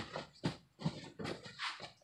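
A car seat cover rustling and scraping as it is pulled and tucked into the seat, in about five short bursts.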